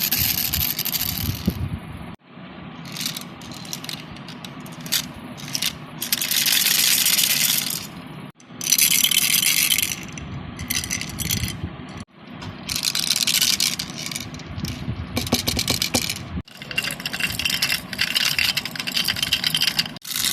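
Baby rattle toys being shaken: spells of dense, high-pitched rattling, each lasting a few seconds and broken off abruptly by short gaps.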